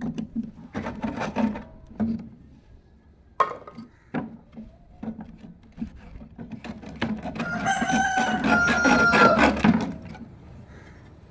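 A rooster crowing once, a long drawn-out call about seven seconds in that swells and then fades. Scattered short knocks come before it.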